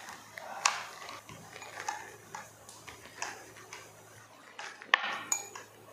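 Rolling pin rolling dough thin on a wooden chopping board: soft rubbing with a few light knocks and taps, the sharpest about a second in and again near the end.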